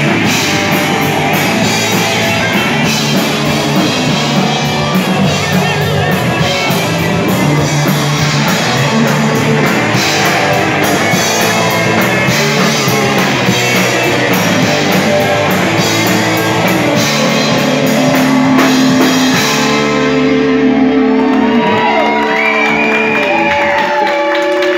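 Punk rock band playing live, with distorted electric guitars, bass and drum kit. About twenty seconds in the drums and cymbals drop out, leaving held, wavering guitar notes ringing on.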